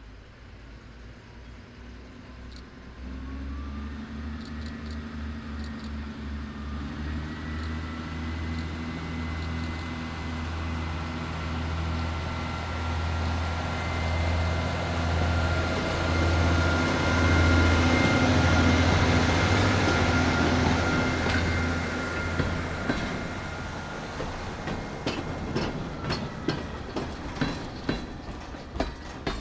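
GE 80-ton centercab diesel locomotive approaching and passing at low speed. Its engine drone grows louder to a peak about two-thirds of the way through, with a steady high-pitched squeal over it, then fades as the tank cars roll by, their wheels clicking over the rail joints near the end.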